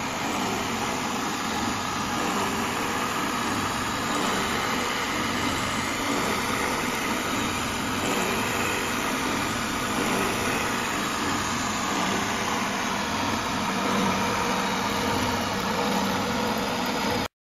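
South Bend vertical milling machine running steadily, its end mill cutting a keyway along a lathe leadscrew. The sound cuts off suddenly near the end.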